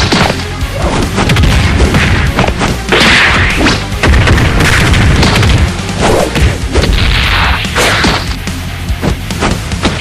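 Dense layered action sound effects: repeated hits, crashes and booms with whooshes, over music and a steady low rumble.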